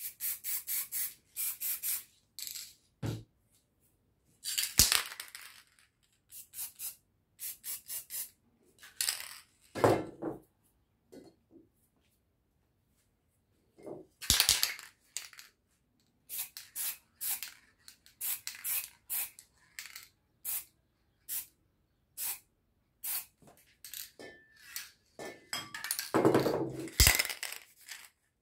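Aerosol spray-paint cans being used in short hissing bursts, with clinks and knocks of the metal cans being handled and set down; quiet for a couple of seconds in the middle.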